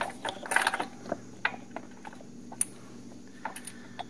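Small metal clicks and taps of a bolt and engine-guard bracket being handled as the bolt is started by hand into a threaded hole in the motorcycle frame: a quick cluster near the start, then single ticks about once a second, over a faint low steady hum.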